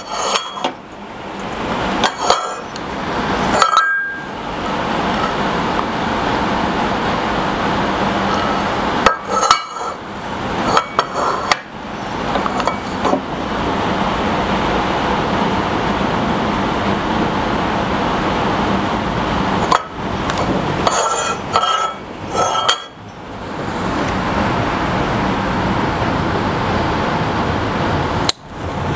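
Small metal parts of a router fence kit clinking and knocking in bunches as they are handled and fitted together, between long stretches of a steady rushing noise.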